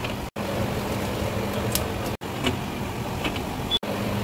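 Steady rumbling background noise with a faint low hum and a few light clicks, cutting out for an instant three times.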